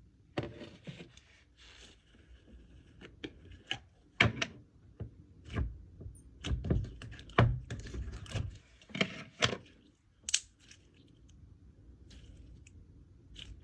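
Hands opening and handling a plastic slime container and its packaging: irregular knocks and thunks with short crinkling and tearing, growing quieter over the last few seconds.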